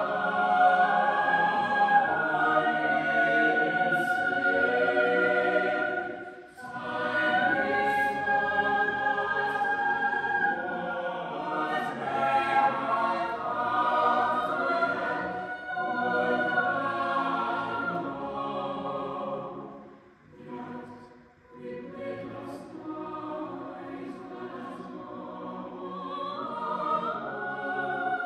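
A mixed-voice chamber choir of sopranos, altos, tenors and basses singing sustained choral chords. There are brief pauses between phrases about six seconds in and again around twenty seconds in.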